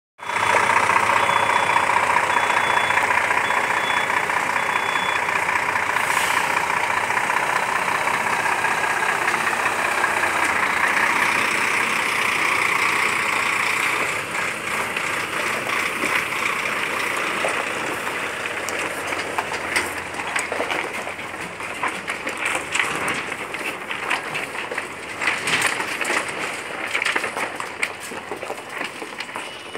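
Volvo FH truck idling with a steady running sound. A faint beep repeats about once a second during the first few seconds. After about halfway the sound turns rougher and less even, with scattered clicks.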